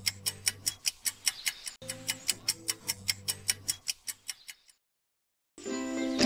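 Rapid, evenly spaced clock-ticking sound effect over soft background music; it fades out about four and a half seconds in. After a second of silence, louder music starts near the end.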